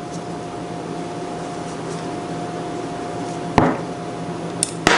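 A steady hum with a faint hiss underneath, with light clicks of small brass pressure-washer pump parts being handled: one about three and a half seconds in and two close together near the end.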